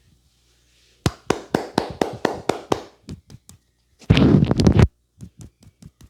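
Hands striking a person's head in an Indian head massage: a run of sharp slaps about four a second, then a fast flurry of tapping lasting under a second, then a few lighter taps.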